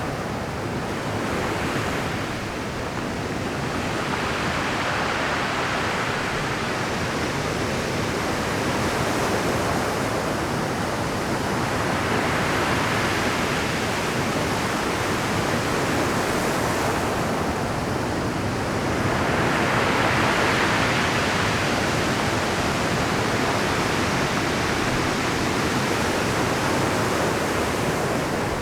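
Pacific surf breaking on rocky shore at high tide: a continuous roar of crashing waves, with heavier breakers swelling up about every seven seconds.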